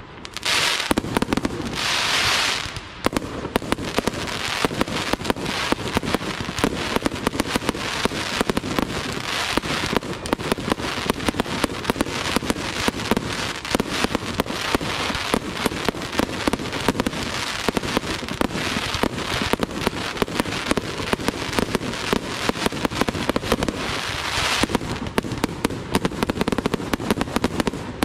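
Aerial fireworks display in a rapid, continuous barrage: many sharp bangs a second overlapping with crackle, with a louder hissing patch about two seconds in and again near the end.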